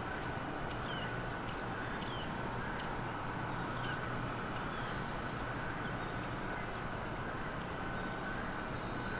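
Small birds chirping: a string of short, high, falling chirps, and two longer falling calls about four seconds and eight seconds in, over a steady low background rumble.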